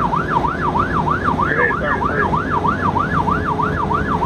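Electronic emergency-vehicle siren in a fast yelp, its pitch sweeping up and down about three times a second, over the rumble of a vehicle's engine and tyres on the road.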